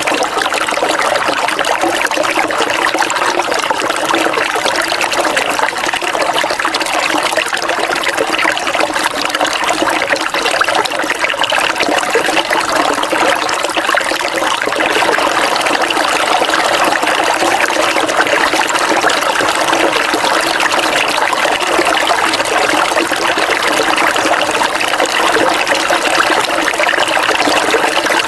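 River water running steadily, a continuous rushing noise without breaks.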